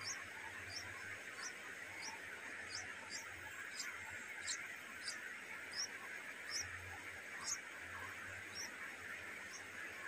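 Thin, high-pitched chirps of stripe-throated bulbul nestlings begging at the nest, repeated about twice a second, a few of them louder, over a steady high hiss.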